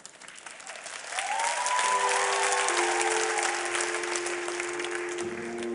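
Studio audience applauding, swelling about a second in, while music with long held notes starts underneath.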